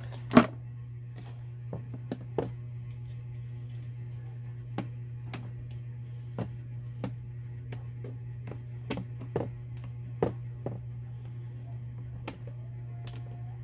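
Scattered clicks and taps of a screwdriver and small parts being handled on a wooden workbench while the screws are taken out of a corded Bosch drill's handle, the loudest knock about half a second in. A steady low hum runs underneath.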